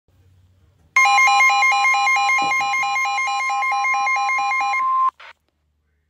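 Electronic telephone ringer trilling: a steady high tone with a second tone warbling about five times a second. It starts about a second in and cuts off abruptly after about four seconds, followed by a brief blip.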